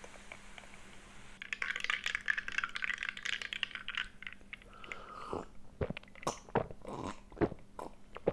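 Food containers and utensils handled on a table: a couple of seconds of crackly rustling, then a string of light clicks and clinks.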